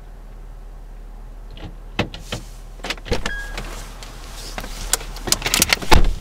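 Irregular sharp pops and cracks, a few at first and then coming thick and fast near the end: small ground fireworks or firecrackers going off, heard from inside a parked car.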